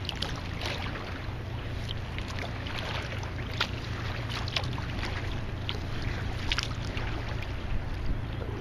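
Water lapping and splashing against a kayak in short, irregular slaps, over a steady low rumble.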